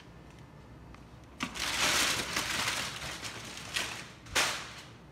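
Aluminium foil crinkling and crackling as it is peeled back off a food tray, in a run of rustling bursts starting about a second and a half in, the loudest a sharp crackle near the end.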